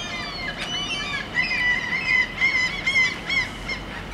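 A flock of birds calling in quick, repeated, arching calls, loudest in the middle, over a faint steady tone.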